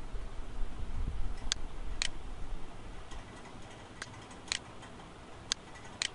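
Computer mouse button clicking six times in short, sharp clicks, some in pairs about half a second apart, over a low background rumble that drops away about three seconds in.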